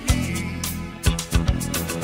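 Background music: a song with a steady drum beat over a sustained bass line.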